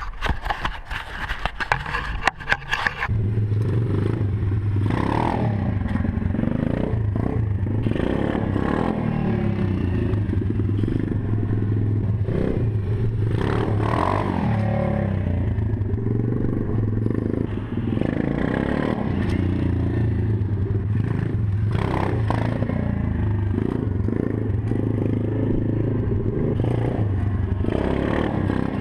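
Knocks and scrapes for about the first three seconds, then a 125cc single-cylinder pit bike engine running steadily, with several rises and falls in revs as the rider opens the throttle for wheelies.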